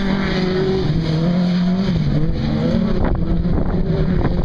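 Autocross racing buggy engine running at high revs on the track; the note holds, dips briefly about two seconds in as the driver lifts or shifts, then climbs again.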